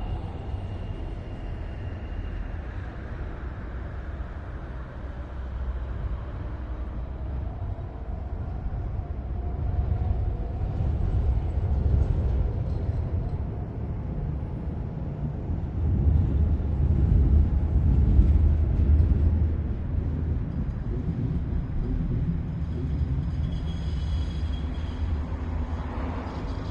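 Low, continuous rumble of distant city ambience, swelling louder about ten seconds in and again for a few seconds past the middle. Faint high squealing tones join near the end.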